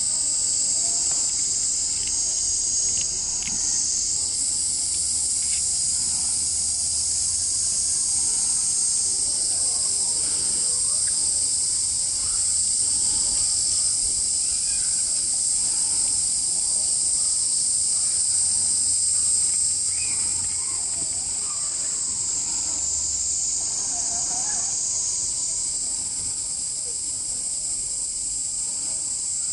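Steady, high-pitched drone of an insect chorus, with faint murmur of people's voices underneath.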